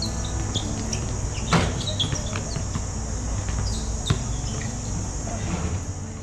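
Live sound of a pickup basketball game on an outdoor court: short sneaker squeaks, players calling out, and two sharp thuds of the ball about one and a half and four seconds in, over a steady high drone of insects.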